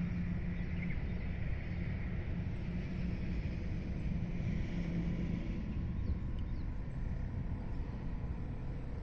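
Steady low rumble with a faint hum that swells and fades.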